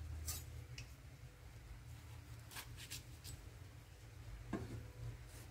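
A few faint, short clicks and taps as green chillies are slit with a knife and dropped into a steel pot of cut vegetables, over a low steady hum.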